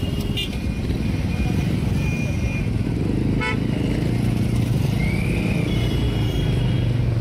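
Steady road traffic rumble with several short vehicle horn toots, one of them briefly rising and falling in pitch.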